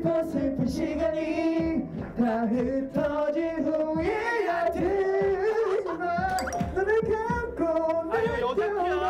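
A young man singing a slow ballad through a handheld karaoke microphone over the backing track, in the song's original key.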